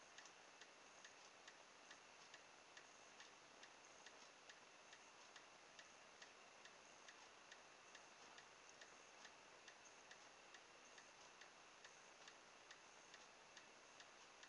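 Near silence: faint, even ticking, several ticks a second, over a steady low hiss.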